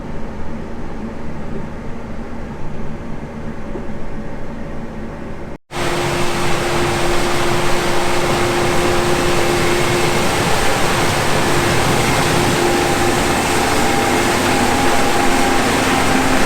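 A combine harvester running in corn. For the first five and a half seconds there is a steady, lower engine hum; after a sudden cut the sound is louder and hissier, with steady whining tones over it.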